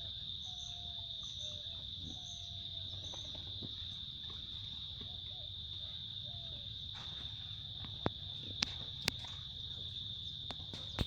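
Insects making a steady high-pitched drone throughout. Faint short repeated calls from an animal are heard in the first few seconds, and a few sharp clicks come in the second half.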